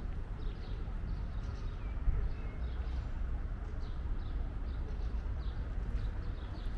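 Small birds chirping in short repeated calls over a steady low rumble, with a single brief knock about two seconds in.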